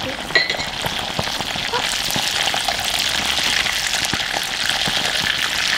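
Pieces of raw eel frying in hot oil in a small cast-iron skillet over a charcoal brazier, sizzling and crackling steadily.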